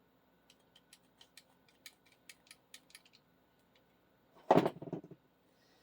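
A quick run of light clicks and taps from small parts being handled on a workbench, then one loud, brief rustling clatter about four and a half seconds in.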